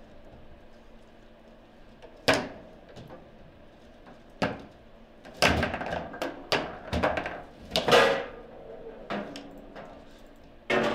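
Table football (foosball) in play: sharp knocks and clacks of the ball being struck by the plastic figures and hitting the table, and of rods banging, a few single knocks at first, then a rapid flurry in the middle, and another loud knock near the end.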